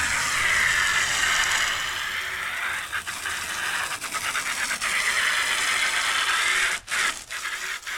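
Steady scratchy washing noise as a mountain bike wheel is cleaned, with a short dip about seven seconds in.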